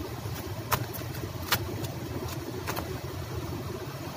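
A fish flopping on concrete paving, its body slapping the stone in a series of sharp slaps, three louder ones about a second apart, over a steady low rumble.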